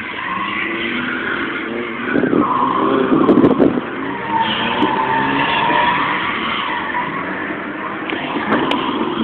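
Mazda RX-8's two-rotor Wankel rotary engine revving hard, heard from inside the car, while the tyres squeal in a drift from about two seconds in, loudest around three and a half seconds in.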